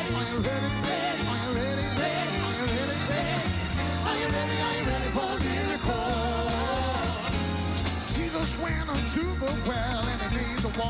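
A man singing a song while playing an electric keyboard, with a band behind him and a steady bass line under the melody.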